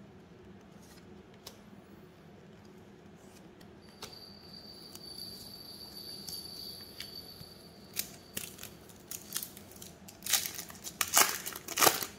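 Plastic wrapper of a trading-card pack crinkling and tearing as it is opened, with a few light clicks; the crinkling is loudest in the last two seconds.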